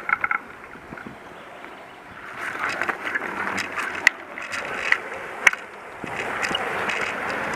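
Bicycle rolling along a gravel path: steady tyre crunch and rattle, growing louder about two seconds in, with two sharp knocks about four and five and a half seconds in.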